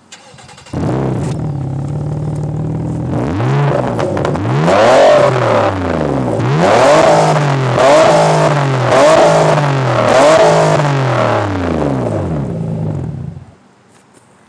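2009 Nissan Maxima's 3.5-litre V6 breathing through a 3-inch aftermarket exhaust. It starts up about a second in and idles, is revved about six times in quick succession, settles back to idle, and is switched off near the end.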